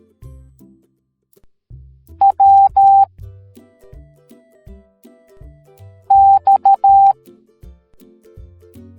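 Morse code beeps: a steady high tone keyed on and off in short and long pulses, in two groups about four seconds apart, over quieter background music with a bass line.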